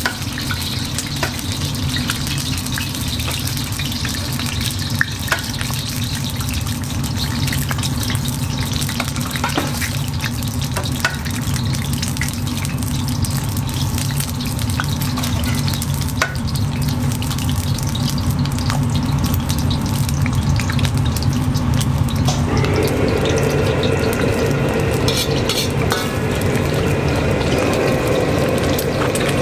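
Eggs frying in hot oil in a steel wok over a gas burner, a steady hiss over a constant low burner rumble, with occasional sharp clicks as more eggs are added. About three-quarters of the way through the sound grows fuller and slightly louder.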